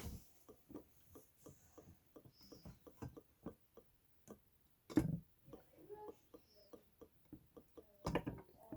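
Faint clicking, about three clicks a second, with a louder knock about five seconds in and a clatter near the end as the top of a vacuum coffee maker is worked to break its vacuum seal.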